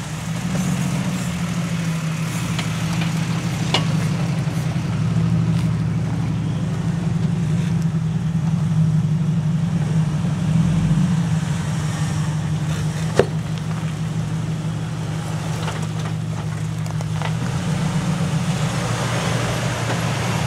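Jeep Wrangler engines running at low speed as the Jeeps crawl over rocks, a steady low hum that swells and eases, with a single sharp knock about thirteen seconds in.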